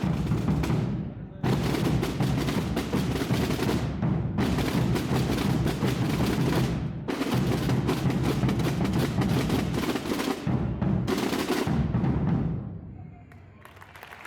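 Massed drums and bass drums of a Holy Week tamborada beating together in a dense, continuous roll. It breaks off briefly every few seconds and fades down near the end.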